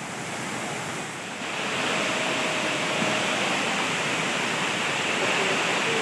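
Waterfall crashing down a rock face: a steady rushing of water that steps up louder about a second and a half in.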